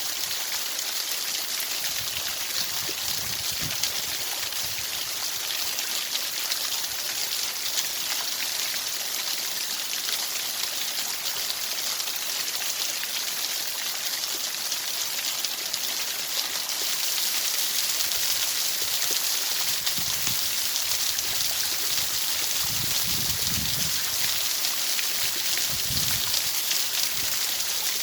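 Steady white-noise hiss like rushing water, heaviest in the high range. It gets a little louder about seventeen seconds in, with a few faint low rumbles underneath.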